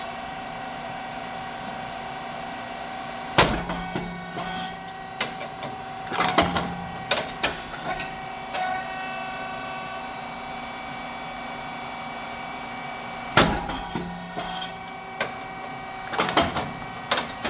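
SYP9002 rice cake machine running: a steady hum from its motor, hydraulic pump and fan, with a sharp bang twice, about ten seconds apart, as the heated moulds open and the rice mix puffs into cakes. Each bang is followed by a few seconds of clattering and knocking from the moving mechanism.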